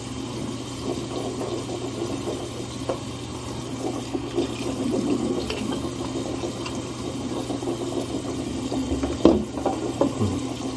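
Mouthwash being swished around in the mouth, with a short knock about nine seconds in.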